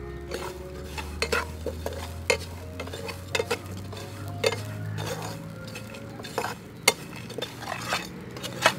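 Metal spatula stirring salt and dried chili flakes around a frying pan, with irregular clicks and scrapes of metal on the pan as they toast dry.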